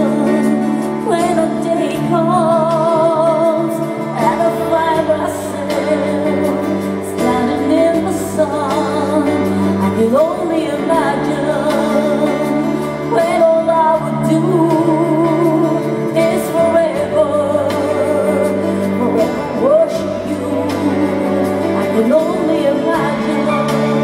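A woman singing a slow Christian ballad live with pronounced vibrato, accompanied by piano and band sustaining chords underneath.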